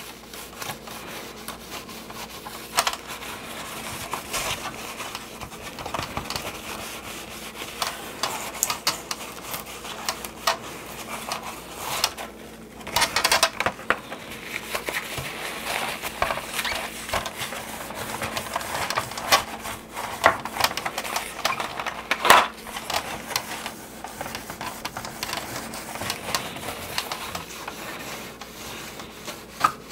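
A folded paper napkin wet with baby oil rubs back and forth over the hard plastic of a 1983 G.I. Joe Skystriker toy jet. The scratchy wiping carries on throughout, with scattered sharp clicks and knocks from the plastic parts being handled. The loudest clicks come about three seconds in and about twenty-two seconds in.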